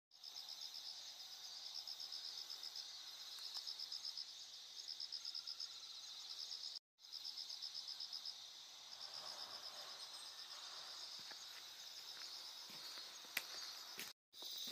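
Crickets chirping in a steady, fast pulsing trill, high-pitched and faint. The sound cuts out briefly twice, and there is one sharp click near the end.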